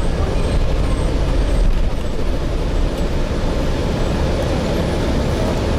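Gillig Phantom transit bus with a Voith transmission under way, heard from inside: a steady, even rumble of engine, drivetrain and road noise.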